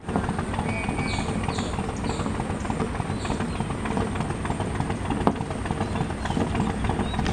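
Steady low, rough rumble with a rapid flickering texture, with a few short high chirps in the first three seconds.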